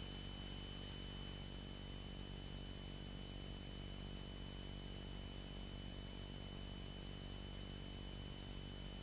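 Faint steady hiss and low hum on a light aircraft's headset intercom audio while the radio is silent, with a thin steady high-pitched tone over it.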